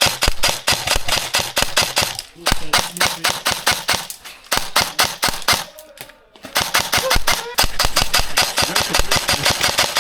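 Airsoft guns firing on full auto: long strings of rapid, evenly spaced shots, with brief lulls about two seconds in and again around six seconds in.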